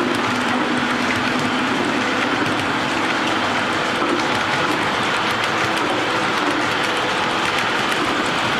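O gauge model freight train of tank cars rolling past on three-rail track: a steady rolling noise of metal wheels on rail, with faint rapid clicking.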